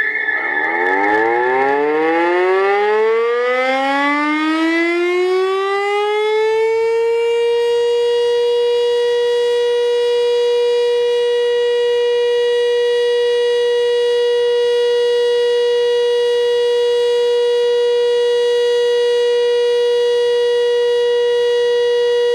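Motor-driven fire siren winding up, its pitch rising for about seven seconds, then holding one steady wail: the alarm that calls out volunteer firefighters.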